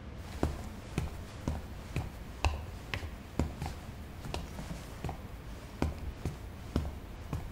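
Footsteps of hard-soled shoes on a hard floor, a steady walking pace of about two steps a second, each step a short thud with a click.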